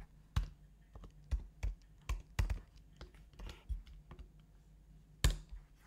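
Computer keyboard keys being typed, a dozen or so short, sharp clicks at an irregular pace, with one louder click about five seconds in.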